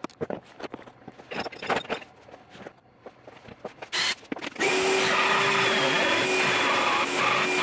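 Cordless jigsaw cutting a wooden baffle board. Scattered knocks and clicks as the tool is handled, a brief start about four seconds in, then it runs steadily from about four and a half seconds in.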